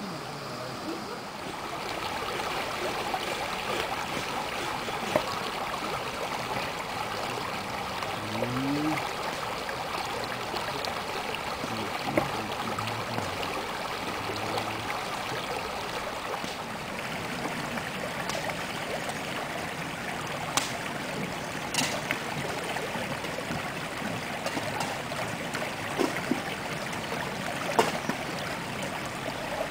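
Shallow, clear stream running over stones in a steady rush, with a few sharp clicks here and there.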